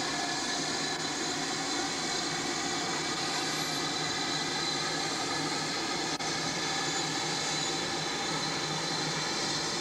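Steady hissing roar from a GWR 5700 class pannier tank steam locomotive standing at the platform with steam up. There is a single brief click about six seconds in.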